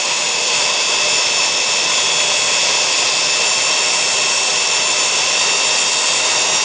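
Milwaukee 0950-1 half-inch corded drill's brushed motor running steadily at no load in reverse, a constant whine over a rushing hum. Its speed is lower than in forward because the field is switched without rotating the brushes, so the motor is timed for forward.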